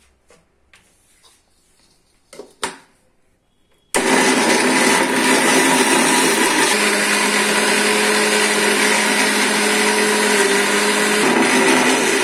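A couple of light knocks, then about four seconds in an electric mixer grinder starts abruptly and runs steadily on its lowest speed. Its steel jar is grinding salted peanuts and honey into a coarse, crunchy peanut butter.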